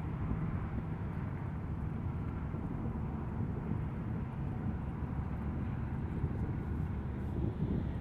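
Firefighting helicopter's engine and rotors running steadily: a low rumble with a faint, steady whine above it.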